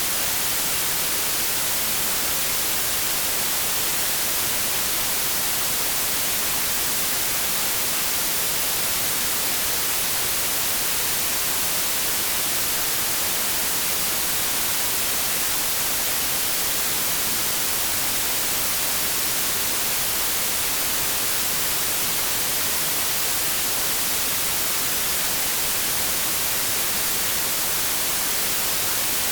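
Steady, unchanging synthetic white noise, a hiss weighted toward the high frequencies and thin in the bass, with no other sounds.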